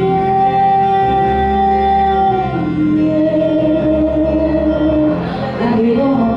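A singer holds two long sustained notes, each about two and a half seconds, over a backing track with a steady pulsing bass. The melody moves more quickly near the end.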